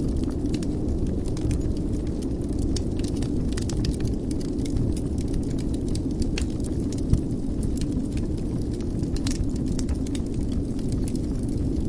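Wood fire burning in a fireplace: a steady low rumble with frequent small crackles and one louder pop about seven seconds in.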